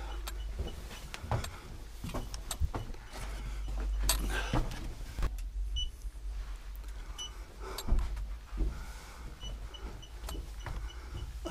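Footsteps scuffing and crunching on a dirt and gravel floor, with rustling and handling noise from a hand-held camera: irregular knocks and scrapes over a low rumble.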